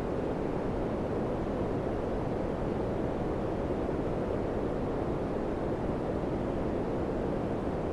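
Daikin FCQ100KAVE4 ceiling cassette air conditioner running, its fan blowing a steady, even rush of air.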